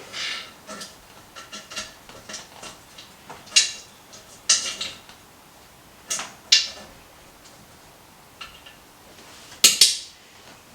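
Irregular metallic clinks and clanks of tools and tap fittings being handled while a monoblock tap is taken off a wash basin. The loudest clank comes near the end.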